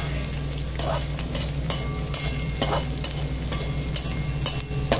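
Sliced onion, green chilli and carrot sizzling in hot oil in a steel kadhai as a metal spoon scrapes and turns them, in short irregular strokes. A steady low hum runs underneath.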